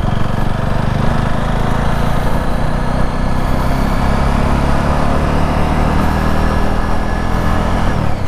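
Motorcycle engine running under way as the bike speeds up to about 40 km/h, with wind and road noise, picked up by a lavalier mic on the rider. The engine note holds fairly steady and eases down slightly near the end.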